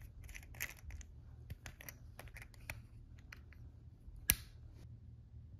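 Light clicks and taps of a small bottle of aroma oil being handled, coming irregularly, with one sharper click about four seconds in.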